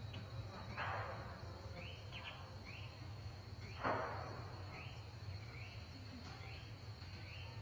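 Outdoor insect chorus: a steady high-pitched drone with short rising chirps repeating about once or twice a second. Two brief rustling swishes come through, about a second in and, louder, about four seconds in.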